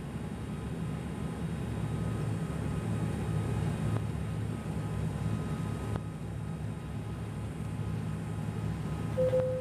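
Steady drone of an ATR 72-200's twin Pratt & Whitney PW124B turboprops and propellers heard inside the cabin on approach. A short steady tone sounds near the end.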